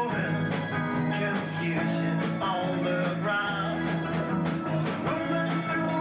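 Rock music: a guitar-led band playing at a steady pace, with a bass line underneath and a melody line on top.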